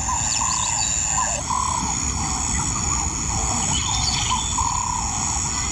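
Lion cubs calling with short, rising-and-falling mewing cries, repeated every half second or so, over a steady high insect buzz.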